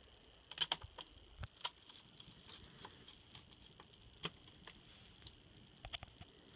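Scattered light clicks and taps of screws and a small Phillips screwdriver against the plastic screen bezel of an ASUS X55C laptop as the bezel screws go back in, over a faint steady high hum.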